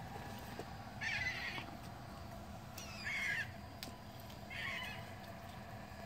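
Gulls giving three harsh squawking calls, about a second and a half apart, over a steady low hum.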